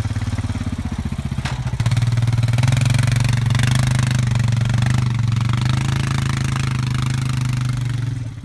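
ATV engine running steadily close by, growing louder about two seconds in.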